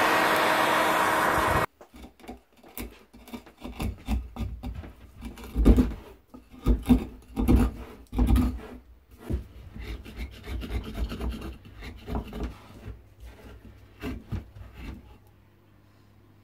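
A heat gun blowing steadily with a hum, which cuts off under two seconds in. Then irregular scraping and rubbing strokes, strongest in the middle, as burnt char is cleaned out of the charred hollow of a totara log.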